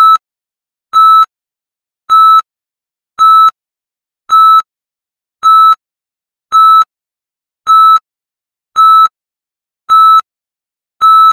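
Electronic countdown beeps: a short, steady, high beep about once a second, eleven in all, marking each number of a 10-to-1 countdown.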